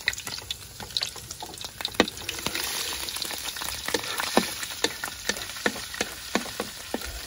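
Snake fat and oil sizzling in a hot frying pan, a steady hiss with many sharp pops and clicks, as if being stirred.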